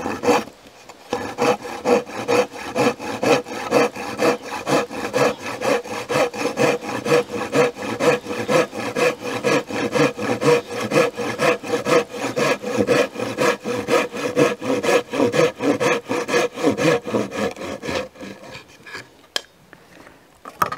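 Small Silky handsaw cutting by hand through a red cedar stair stringer, finishing the inside corner of a notch left uncut by a circular saw: quick, even rasping strokes that stop near the end.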